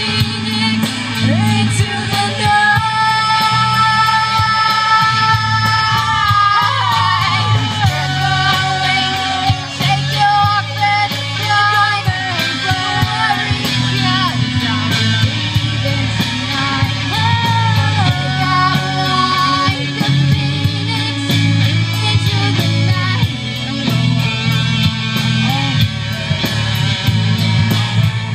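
A rock band playing live, with a singer's lead vocal over electric guitars and a drum kit.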